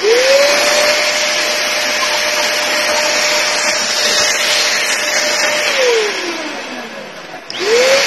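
Perysmith handheld vacuum cleaner switched on, its motor whine rising to a steady pitch and running with a loud airflow hiss. About six seconds in it is switched off and winds down with a falling whine, then it is switched on again near the end: the replaced on/off push button now turns it on and off.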